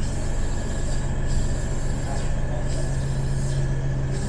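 Steady low hum of a feeder train standing at the platform with its doors open, with a fainter high whine above it.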